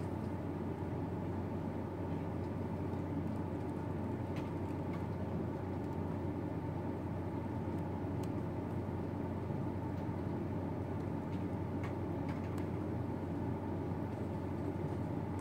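Steady low room hum with a few faint, scattered clicks of keyboard and mouse as code is edited.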